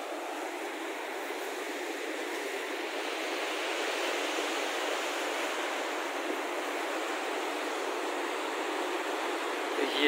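A mountain river rushing steadily, a continuous even sound of fast water that grows a little louder over the first few seconds.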